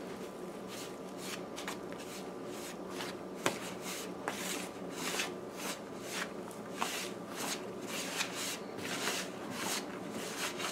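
Hands rubbing and squeezing flour with blended split-pea paste in a plastic bowl: a run of soft, irregular rustling strokes, with one sharp click about three and a half seconds in.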